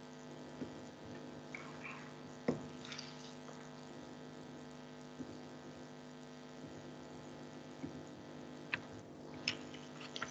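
Faint steady electrical hum in an open video-call microphone, with a few scattered small clicks: a sharper one about two and a half seconds in and several more near the end.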